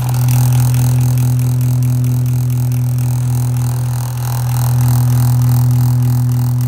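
Small Hoover fan's electric motor running at full speed, a loud steady hum with a rough rattle from badly worn bearings that have play in them. It grows louder right at the start and dips briefly in the middle.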